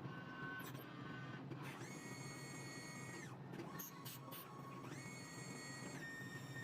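CNC machine axis drive motors whining through moves: the pitch rises, holds steady for about a second, then falls, twice, with a steady whine starting near the end, over a low running hum.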